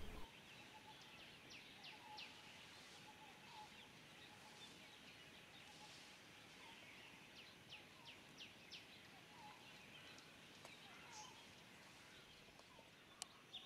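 Near silence with faint, scattered bird chirps: short quick calls, many of them falling in pitch.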